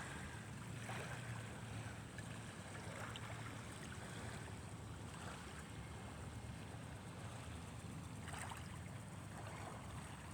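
Small waves lapping gently at the shore of a beach, a steady soft wash with a few slightly louder swells.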